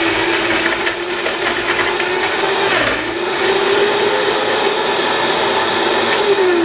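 Vitamix blender motor running at high speed, churning a thick load of frozen strawberries and blueberries with milk into ice cream. Its pitch dips briefly about three seconds in and climbs back, then falls near the end as the motor slows.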